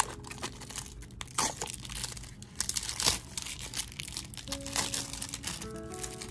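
Plastic shrink-wrap crinkling and tearing as it is peeled off a stack of game cards, a dense run of crackles.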